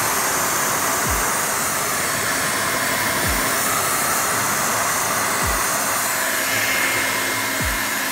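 Steady, loud rush of air from a homemade venturi blower powered by an electric blower, pulling a strong draft in through its intake pipe. A low thud falling in pitch repeats about every two seconds underneath.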